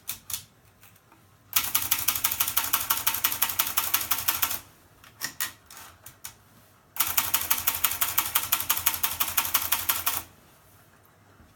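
Hermes Baby portable typewriter being typed on: two quick runs of rapid keystrokes, each lasting about three seconds, with a few single key strikes between them.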